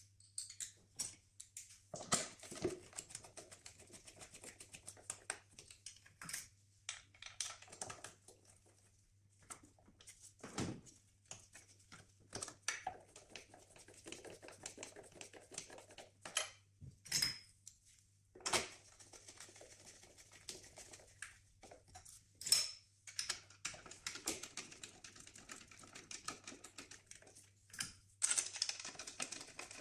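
Hand tools working on an engine: a socket ratchet clicking in quick runs, with sharp knocks and taps of tools and parts against the engine's plastic and metal. A steady low hum runs underneath.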